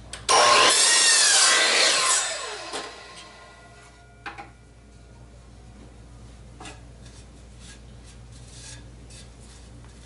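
Power miter saw cutting through a wooden board: about two seconds of loud cutting, then the blade winds down with a falling whine. A few faint knocks follow.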